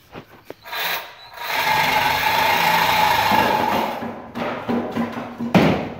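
Cordless reciprocating saw cutting through a rusted exhaust pipe on a 1979 Chevrolet C10 for about two and a half seconds, a steady buzzing whine that then stops. Near the end comes a loud clang with a ringing tone after it.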